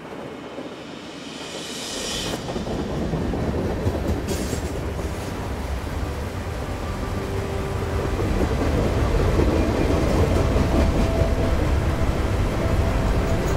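Glacier Express train running past on its track: a steady low rumble with wheel clatter that grows louder about two seconds in and again in the second half.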